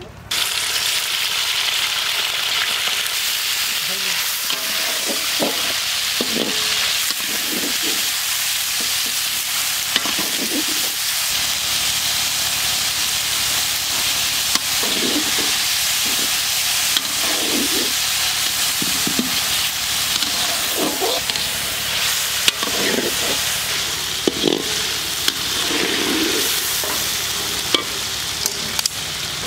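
Diced chicken sizzling loudly in hot oil in a large iron karahi, stirred with a perforated metal spatula that now and then clicks and scrapes against the pan.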